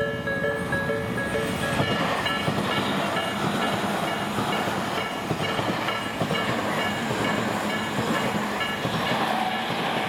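An electric commuter train running through a Japanese level crossing, its wheels rumbling and clattering over the rails. Under it the crossing's electronic warning bell keeps ringing, about two dings a second.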